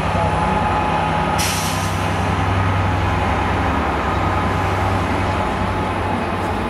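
Diesel train engine running steadily with a heavy, constant low hum, and a short hiss of air about a second and a half in.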